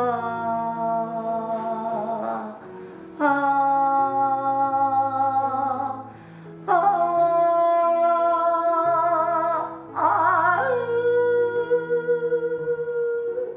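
A woman trained in Korean traditional singing sings a slow vocal scale exercise: four long held notes with vibrato, each higher than the one before, with short breaths between. It is a test of her voice recovering from vocal nodules and laryngitis, which she puts at about 80% of its full range. Soft low held notes sound underneath.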